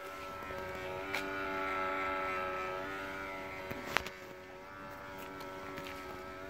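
A steady whine of several pitched tones from a 2002 Smart Fortwo CDI with its dipped headlights switched on: a noise that comes with the lights and that the owner cannot place. A sharp click about four seconds in.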